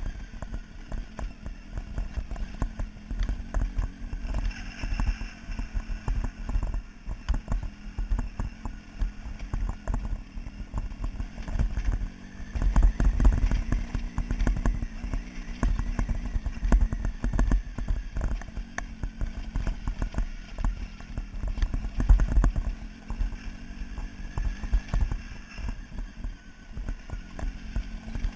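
Motorcycle engine running steadily at low road speed on a rough gravel track, with irregular knocks and rattles as the bike jolts over loose stones.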